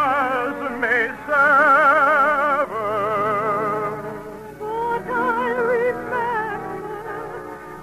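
Operatic singing over orchestral accompaniment: a voice with wide vibrato holding long notes, with a short break about four and a half seconds in before the next phrase.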